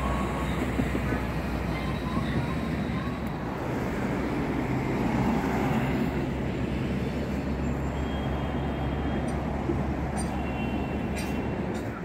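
Steady low rumble of road traffic on a bridge, with a vehicle driving past close by.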